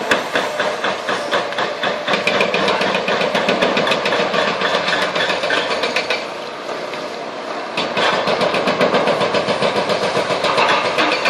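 Demolition excavator's hydraulic breaker hammering in rapid, even blows, several a second, over the running diesel engine. The blows stop for about a second and a half past the middle, leaving the engine alone, then resume.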